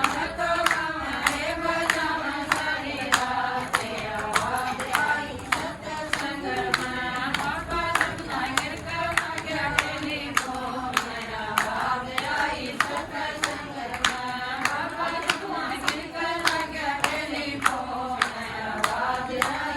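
A group singing a Haryanvi devotional bhajan, with hand claps keeping a steady beat about twice a second.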